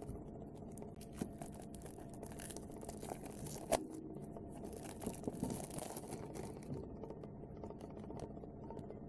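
Faint rustling and light clicks of card-game packaging being handled and opened, with one sharper click near the middle.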